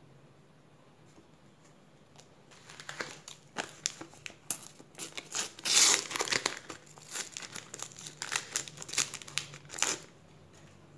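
Crinkling and tearing of a sticker packet's wrapper being handled and torn open, a run of crackly rustles starting about two and a half seconds in and stopping near the end, loudest midway.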